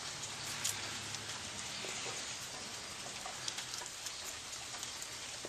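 Faint crackling of dry, papery garlic skin being peeled by hand from crushed cloves, a few small clicks over a steady hiss.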